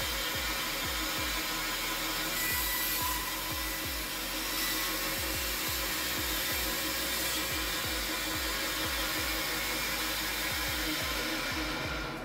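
FABTEC BS 312 woodworking bandsaw running and cutting through a pine block: a loud, steady, whooshing hiss that stops abruptly at the end. A steady beat of background music plays underneath.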